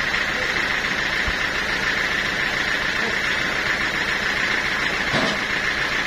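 Band sawmill running steadily with no cut under way: an even mechanical whirr and hiss from the machine's drive and blade.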